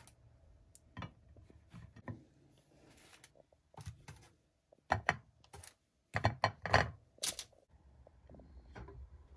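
Poğaça buns being moved from the baking tray onto a serving plate: scattered taps and knocks of pastry and utensils against the dishes. The loudest cluster comes about six to seven seconds in.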